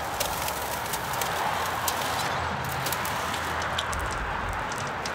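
A heavy shrink-wrapped cardboard box being shoved and tipped up on a wooden pallet: scattered knocks, scrapes and plastic-wrap crinkles over a steady hiss.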